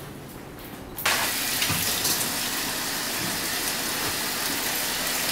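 Tap water running steadily from a wall faucet into a steel stock pot of callaloo greens, starting suddenly about a second in.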